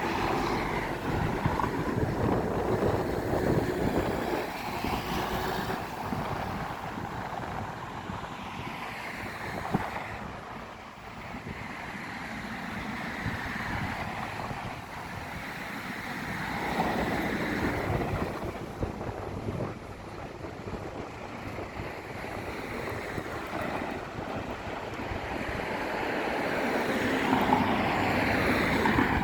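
Road traffic noise with wind rushing over the microphone, swelling and fading several times as vehicles pass.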